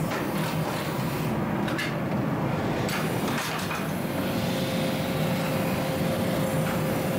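Gas-fired forge running with a steady rushing noise, with a few faint clinks; a steady hum comes in about four seconds in.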